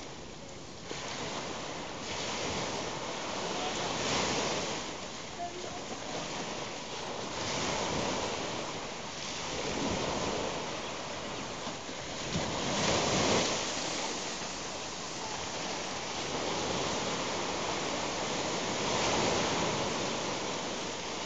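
Sea surf washing onto the beach, a steady rush that swells and fades every few seconds as waves break, with some wind on the microphone.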